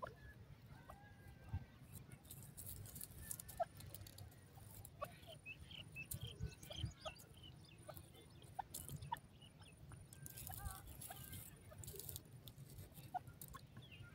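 Grey francolin giving soft, scattered clucking and chirping notes as it forages, with a run of short notes about halfway through, and faint rustles in between.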